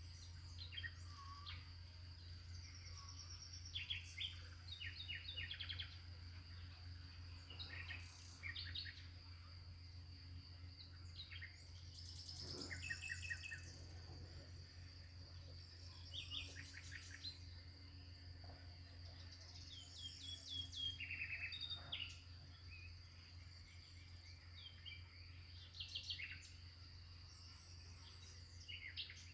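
Several songbirds calling and singing in short chirps, trills and quick runs of repeated notes, loudest around the middle, over a steady high-pitched tone and a faint low hum.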